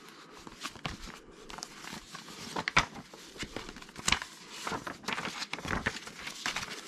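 Packaging being handled: plastic wrap and cardboard crinkling and rustling, with scattered light clicks and knocks.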